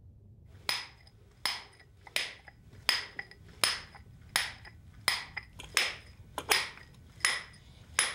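A hammer striking a hand-held steel drill bar against rock: about eleven ringing metal blows in a steady rhythm, roughly one every three-quarters of a second, as a miner hand-drills into the rock.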